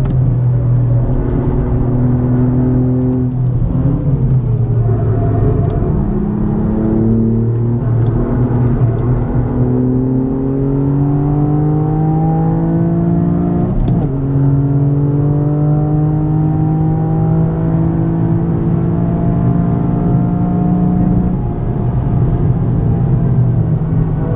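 Toyota GR Yaris turbocharged three-cylinder engine with an Aulitzky aftermarket exhaust, heard from inside the cabin at full throttle on track. The engine note climbs in pitch under hard acceleration and drops sharply several times as the car shifts up or lifts, then climbs again.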